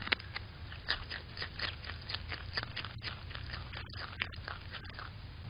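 Groundhog biting and chewing a raw carrot right at the microphone, a run of crisp crunches about four a second.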